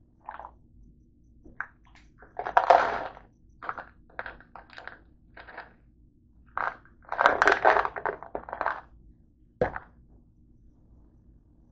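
A plastic bottle of chewable antacid tablets being handled, with short bursts of crunching in between, as of tablets being chewed. A single knock near the end as the bottle is set back down on the counter.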